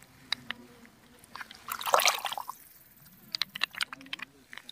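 Water splashing and dripping: one louder splash about two seconds in, with scattered small clicks and drips around it.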